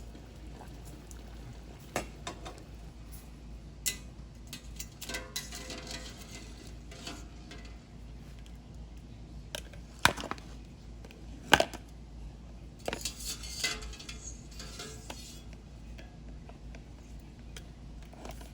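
Kitchen clatter: scattered clinks and knocks of dishes and utensils, the two loudest knocks coming a little past the middle, with a few short stretches of handling noise between them.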